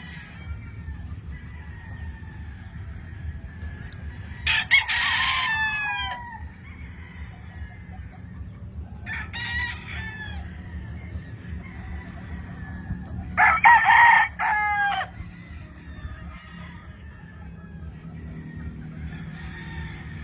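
Gamefowl roosters crowing three times, each crow about one and a half seconds long, with faint clucking between the crows over a steady low rumble.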